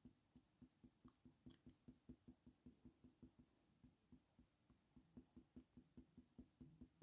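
Very faint, even strokes of a colour pencil shading on watercolour paper, about five a second.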